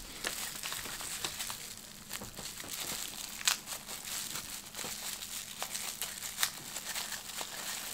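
Bubble wrap being unwrapped by hand from a small object, its plastic crinkling and crackling continuously with scattered sharp clicks.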